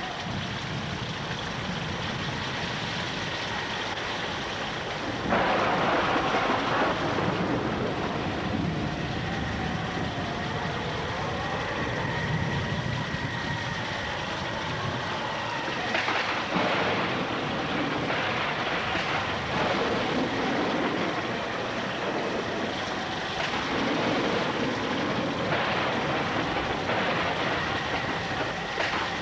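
Rushing river water with splashing, a steady noise that surges louder about five seconds in and again around sixteen seconds.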